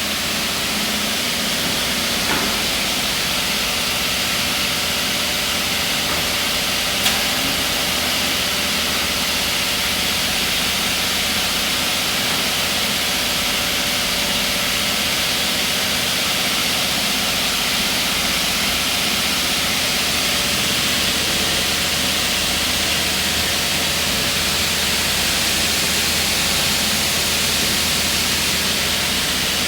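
Aluminium-cutting saw machine running steadily, an even hissing whir with a low hum, with a brief click about seven seconds in.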